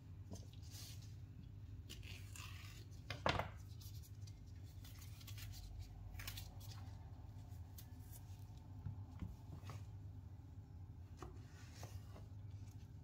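Kitchen knife cutting a banana on a plastic cutting board, with the peel pulled off by gloved hands: scattered light taps and soft scrapes, and one sharper knock about three seconds in. A low steady hum runs underneath.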